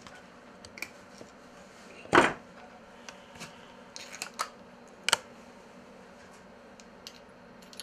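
Small spinning-reel parts and tools clicking and tapping as the reel is handled and put back together: scattered sharp clicks, the loudest about two seconds in and another about five seconds in.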